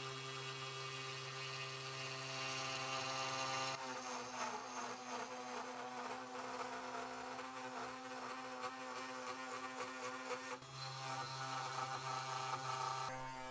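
Two Trees TTC450 CNC router's 24 V spindle motor whining steadily while a single-flute end mill cuts lettering into an 18 mm wooden board, with rough chip noise over the whine. The cutting noise grows harsher from about four seconds in until near eleven seconds, with the feed speed set too high for the cut.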